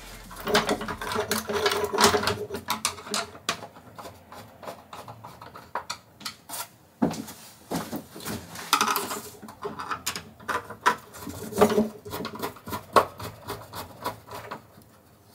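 Irregular clicks, knocks and scrapes of a 3D-printed plastic dust-extraction part being fitted and screwed onto a mitre saw with a hand screwdriver.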